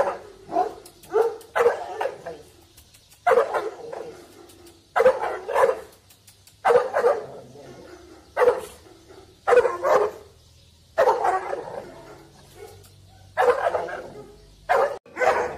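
A large black mastiff-type dog on a chain barks repeatedly at a handler who is provoking it, in the agitation work of guard-dog training. The barks come in short groups of one to three, roughly every second and a half.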